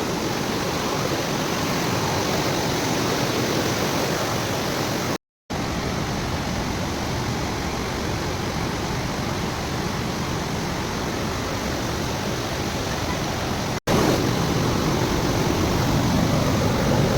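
Waterfall: a steady rush of falling water. It drops out briefly twice, about five seconds in and near fourteen seconds, and is a little louder after the second break.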